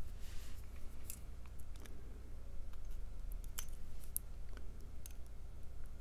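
Small metal tools working on a brass lock plug to get the pins out: a brief scratch, then a handful of sharp, scattered metallic clicks, the sharpest about three and a half to four seconds in.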